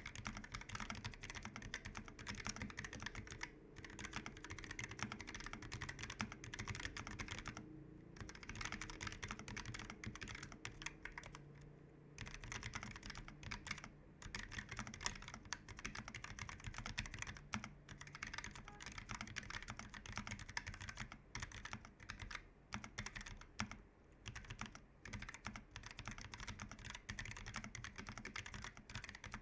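Keychron K1 v4 tenkeyless keyboard with Gateron low-profile red (linear) switches being typed on fast and continuously, a rapid patter of key clicks broken by a few short pauses.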